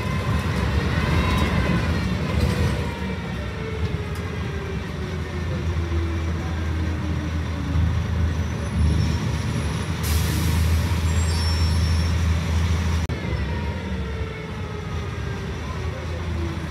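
Scania L113CRL bus heard from inside the cabin while moving: the rear-mounted six-cylinder diesel drones steadily, its pitch sliding down and back up as the bus slows and pulls away. About ten seconds in there is a hiss of released compressed air, lasting about three seconds.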